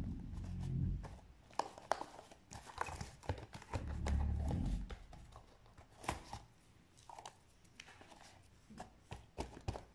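Handling noise of a paper-covered cardboard cylinder: scattered rustles, taps and clicks, with two low, dull thumps, one at the start and one about four seconds in.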